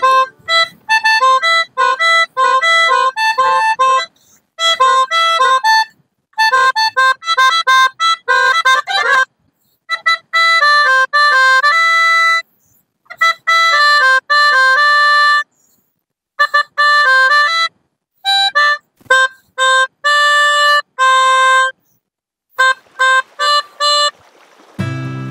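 Melodica played by blowing through its mouthpiece tube while pressing the keys: a tune of short, reedy notes in quick phrases, broken by several brief pauses.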